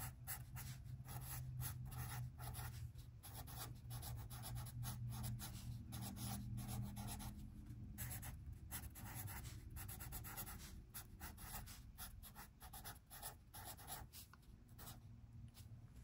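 A felt-tip pen writing a line of handwriting on a spiral-bound sketchbook page: a quick run of short scratching strokes that thins out near the end as the line is finished.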